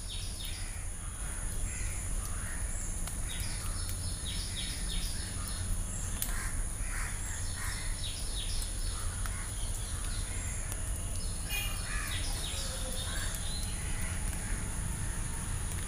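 Birds calling, crows cawing among them, in many short separate calls over a steady high-pitched ring and a low rumble.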